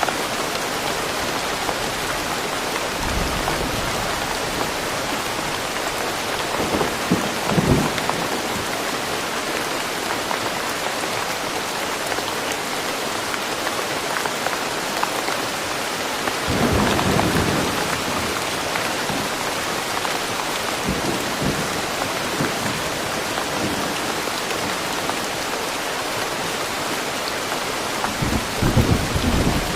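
Steady rain falling in a forest, a continuous even hiss, with a few brief low rumbles rising out of it, the longest about 17 seconds in and another near the end.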